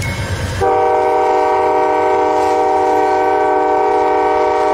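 A low rumble, then about half a second in a locomotive air horn sounds one long, steady blast, a chord of several notes held at a constant pitch.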